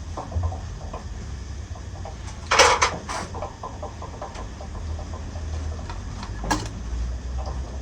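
Metal parts and hand tools being handled during machine assembly: light clinks and ticks, one loud short clatter about two and a half seconds in and a single sharp knock near the end, over a steady low hum.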